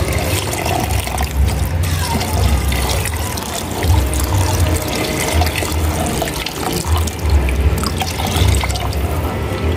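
Water pouring in a steady stream into a pot of freshly fried rice, splashing and churning as a wooden spoon stirs it through; this is the water being added to cook the rice. A low bass beat of music runs underneath.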